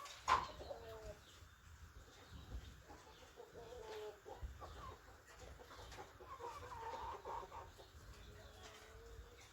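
Chickens clucking: many short calls overlapping on and off, with one sharp, louder sound just after the start.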